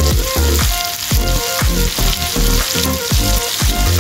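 Diced apple sizzling as it fries in butter in a miniature pan, an even hiss. Background music with a steady beat runs under it.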